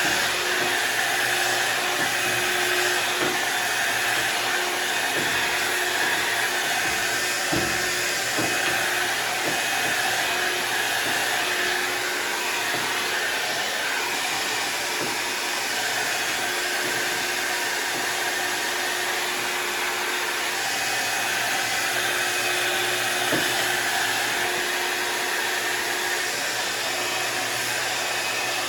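Hot-air styling brush blowing steadily as it is worked through a synthetic wig, with a few faint knocks of handling.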